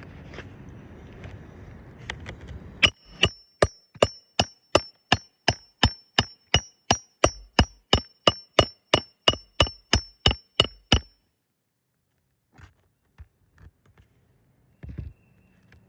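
A hammer driving roofing nails into a replacement asphalt shingle: about twenty quick blows, nearly three a second, each with a metallic ring. They stop about eleven seconds in, and a few light taps and a dull thump follow near the end.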